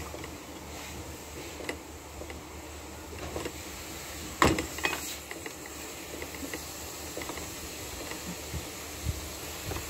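Small clicks and taps of plastic doll parts handled on a workbench over a steady low hum and hiss, with one louder knock about four and a half seconds in.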